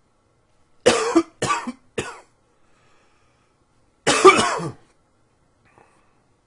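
A man coughing: three quick coughs in a row, then after a pause of about two seconds one longer cough.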